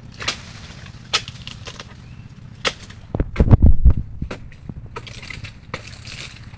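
Blade of a long-handled pole pruning tool chopping into oil palm frond bases: sharp wooden chops every second or so, with a loud cluster of heavy low thuds about three seconds in.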